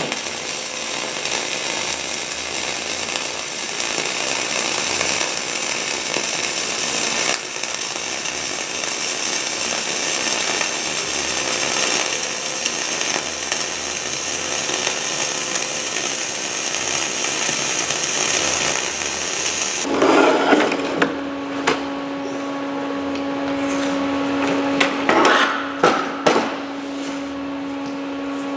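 Wire-feed (MIG) welding arc running steadily on steel for about 20 seconds, with a brief break about 7 seconds in. The arc then stops, leaving a steady hum and a few knocks.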